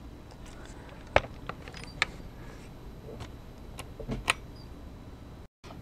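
A few faint, sharp clicks, about three or four, over low steady background noise; the sound drops out for a moment near the end.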